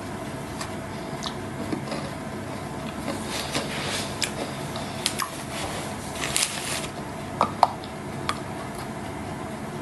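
Light handling noises: scattered clicks and short rustles of things being picked up and moved, busiest in the middle, with two brief pitched clinks about seven and a half seconds in.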